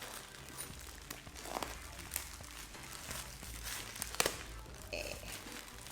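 Gift wrapping being torn open and crinkled by hand: irregular rustling and crackling, with one sharp crackle about four seconds in.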